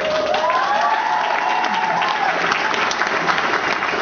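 Audience applauding and cheering, starting suddenly, with a drawn-out rising whoop over the clapping for about the first two seconds.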